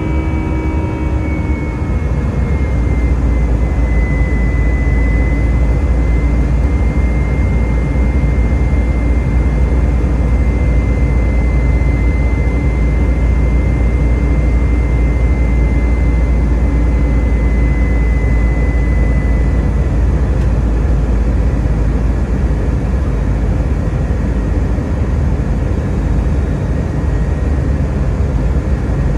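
Airbus A319 jet engine and airflow noise heard inside the cabin: a steady deep rumble and rush. A high engine whine drops slightly in pitch over the first few seconds, then holds and fades out about two-thirds of the way through.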